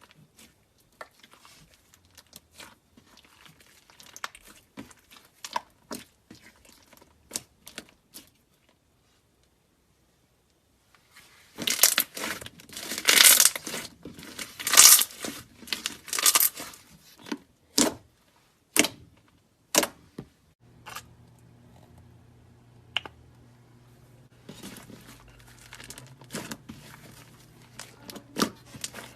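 Slime being squeezed and stretched by hand, making sticky clicks and pops. In the middle comes a loud, dense run of tearing, crackling sounds. A low steady hum joins in for the last third.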